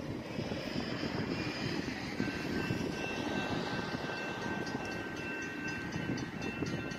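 Distant low rumble of an approaching CSX diesel freight train. A steady high tone joins about two seconds in, and faint rapid ticking is heard near the end.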